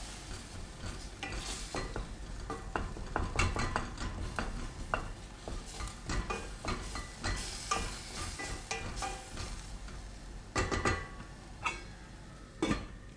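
A wooden spoon stirs and scrapes minced meat frying in a stainless-steel pot, with a low sizzle under repeated short scraping strokes. A couple of sharper knocks come near the end as a metal pot lid is handled over the pot.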